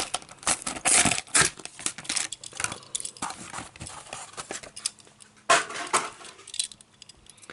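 Hands handling and tearing open the plastic blister and card packaging of a 1:64 die-cast toy car, with dense irregular crackling and a few louder snaps.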